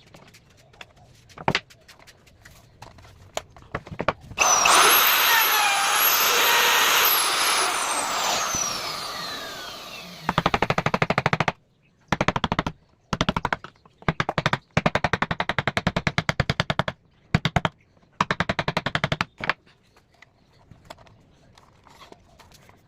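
A wood router's high-speed motor switched on, whining loud and high, then spinning down with a falling whine after a few seconds. It is followed by several stop-start bursts of very rapid, even clattering.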